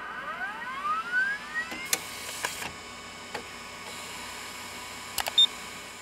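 Roland DWX-4 dental milling machine carrying out its close-collet operation: a motor whine rising in pitch over the first two seconds, then steady mechanical running broken by several sharp clicks.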